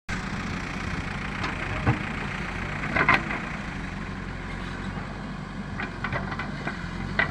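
JCB 3DX backhoe loader's diesel engine running steadily, with a few short, sharp knocks about two, three, six and seven seconds in.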